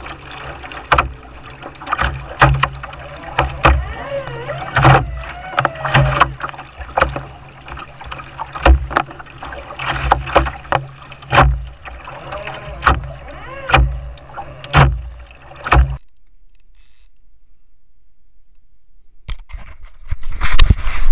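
Kayak paddle strokes: the two blades of a double-bladed paddle dip into the sea in turn, splashing about one and a half times a second, with a low thud from the hull on each stroke. The strokes stop about three-quarters of the way through, and after a short quieter spell loud water sloshing starts near the end.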